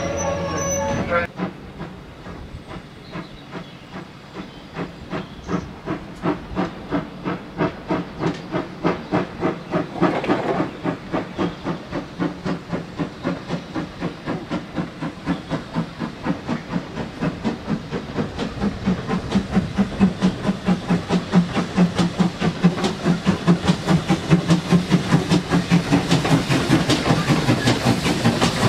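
Steam locomotive in GWR green livery working hard at the head of a train of coaches, its exhaust beats chuffing evenly about three times a second and growing steadily louder as it approaches.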